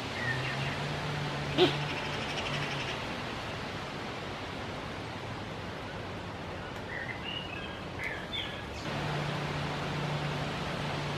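Outdoor background: a steady hiss with a low hum that drops out in the middle, a single sharp click about one and a half seconds in, and a few short bird chirps near the end.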